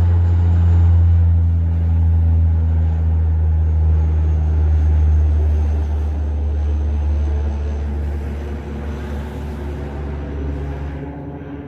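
Low-flying aircraft passing close by, its engines a loud, low drone that fades away in the second half as it moves off.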